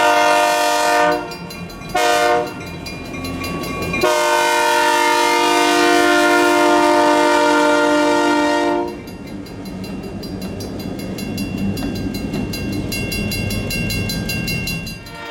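Diesel locomotive's multi-chime air horn sounding: a long blast that ends about a second in, a short blast about two seconds in, then a long blast of about five seconds. This is the long-long-short-long pattern sounded for a grade crossing. After it, the EMD GP-series diesel locomotives keep running with a steady low rumble.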